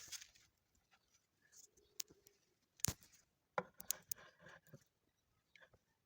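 Scattered light clicks and knocks with short bursts of scraping, as wood and tools are handled on a workbench; the loudest knock comes just before three seconds in. No saw is running.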